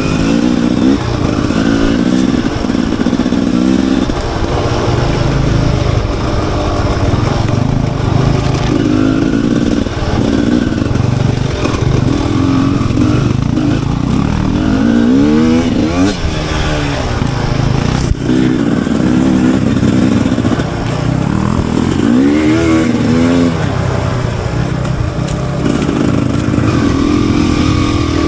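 Enduro motorcycle engine revving in repeated surges, its pitch rising and falling every few seconds as the throttle is opened and closed.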